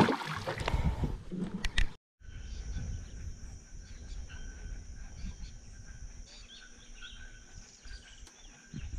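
Outdoor nature ambience: a steady high insect drone with scattered short bird chirps over a low rumble. In the first two seconds come a few knocks and brief voice sounds, then the sound drops out briefly and the ambience picks up.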